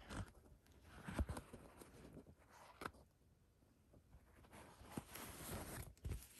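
Several short, faint scratchy rustles of embroidery thread being drawn through quilted fabric and fingers handling the cloth, with a soft bump about a second in.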